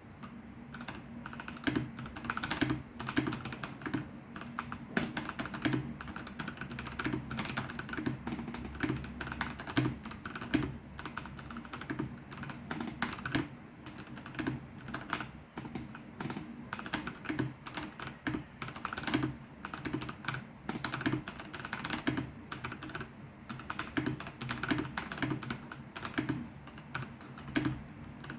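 Typing on a computer keyboard: a steady, irregular stream of key clicks and clacks, several keystrokes a second, with a low steady hum beneath.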